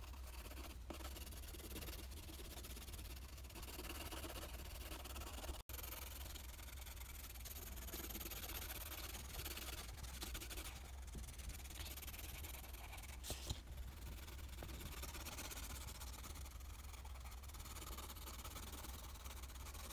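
Faint scratching of a colored pencil shading back and forth on paper, over a steady low hum.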